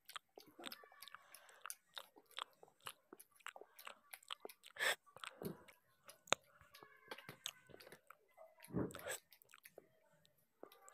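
Close-up eating sounds of rice and fish eaten by hand: chewing with many small wet mouth clicks, and a few louder crunches about five and nine seconds in.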